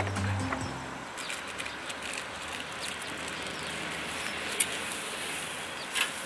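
Steady outdoor background hiss with a few scattered small clicks, one louder click near the end; background music fades out in the first second.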